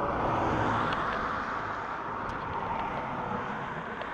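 Road traffic passing over the bridge: a steady rush of tyre and engine noise that swells in the first second and then eases off slightly.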